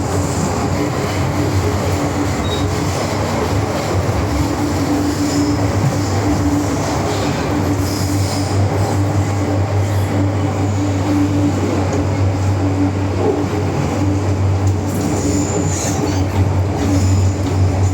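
MTR M-Train metro car running at speed between stations, heard from inside the car: a steady rumble of wheels on rail with a constant low hum and a steady higher tone, plus some wheel squeal.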